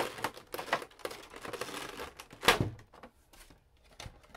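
A Pokémon Celebrations collection box being opened by hand: crinkling and scraping of the packaging with many small clicks, and one louder knock about two and a half seconds in.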